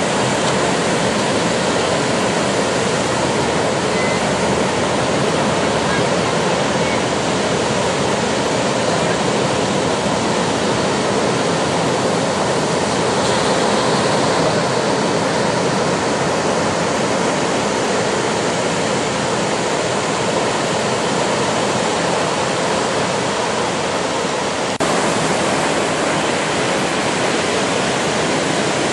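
Steady rushing noise of ocean surf breaking near shore, mixed with wind on the microphone.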